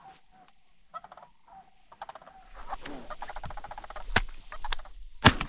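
Sandhill cranes calling overhead: scattered calls early on, then a dense rolling, rattling chorus from about two seconds in. A few sharp cracks follow near the end, the last and loudest just before the end.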